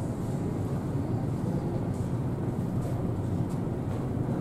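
Steady low rumble of a large ferry's engines and machinery carried through the ship's passenger corridor, with a few faint taps.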